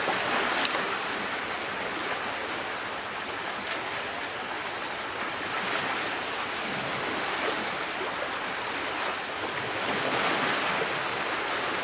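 Steady rushing of waves on the shore, with a single sharp click just over half a second in.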